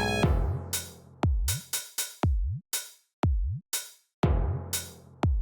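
Electronic music: a drum-machine beat of deep kick drums and snare hits, about two a second, after a synth chord that cuts off just after the start.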